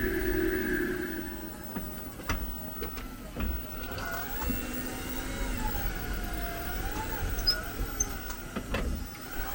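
Squeaking from a 2022 Jeep 4xe: wavering, squealing tones with a few sharp clicks, after a steady tone fades about a second and a half in. The owner hears this squeak when reversing and braking or shifting into Park, and it persists after the dealer cleaned the brakes.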